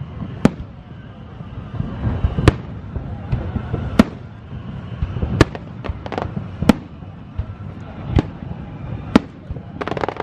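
Aerial fireworks bursting: sharp bangs about every one to one and a half seconds over a low rumble, with lighter crackles between them. Near the end a rapid run of crackling bursts starts.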